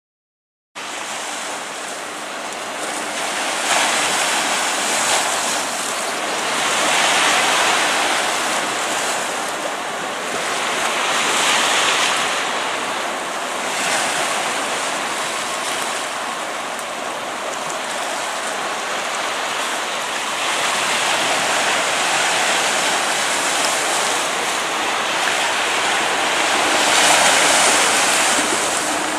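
Sea surf washing, with wind on the microphone: a steady rushing that swells and fades every few seconds, after a brief silence at the start.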